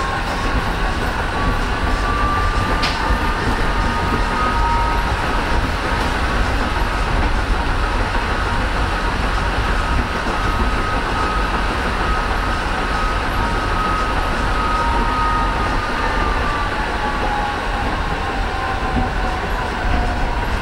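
Stuttgart GT4 Esslingen articulated tram running, heard from inside the passenger compartment: a steady rumble of wheels on rail under a traction whine that rises as the tram picks up speed, holds steady, and falls away near the end as it slows. A single sharp click comes about three seconds in.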